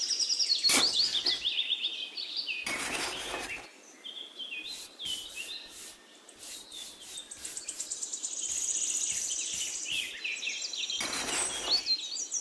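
Small birds chirping in rapid runs of high, falling notes, with a few short scraping strokes of a bristle paintbrush sweeping sand across a plastic pond liner.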